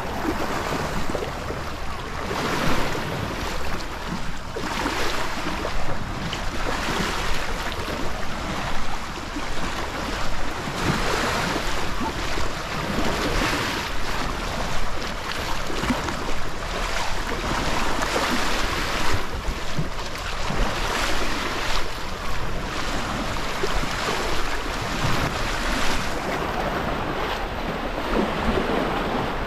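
Sea waves washing onto the shore in repeated swells, with wind noise on the microphone.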